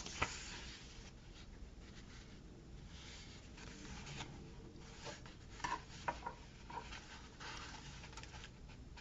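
Faint rustling and rubbing of paper sticker sheets and planner pages being handled, with a few light clicks and taps, a small cluster of them about six seconds in.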